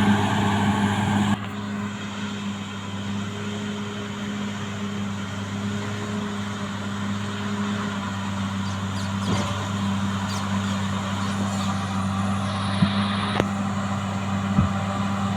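Caterpillar D6R XL bulldozer's diesel engine running steadily under work, dropping in loudness about a second in, with a few sharp knocks in the second half.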